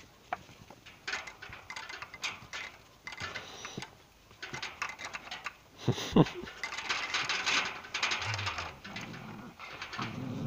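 Puppies play-fighting on concrete: scuffling, scratching and rustling throughout, with one short sharp sound about six seconds in, the loudest moment, followed by busier scuffling.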